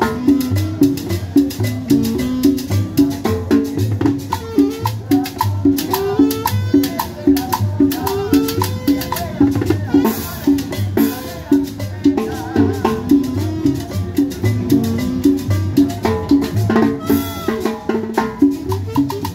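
Live band playing Latin dance music in the salsa style: a plucked upright bass line and hand drums over a steady, driving beat.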